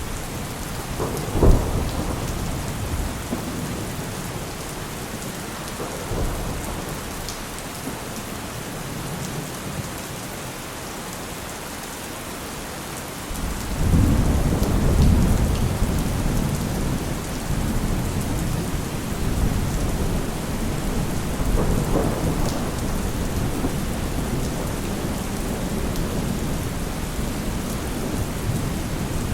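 Heavy rain falling steadily with thunder: a sharp crack about a second and a half in, then a long deep rumble that starts about halfway through and rolls on to the end.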